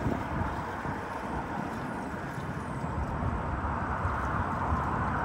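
Wind buffeting the microphone outdoors: a steady rushing noise with an unsettled low rumble.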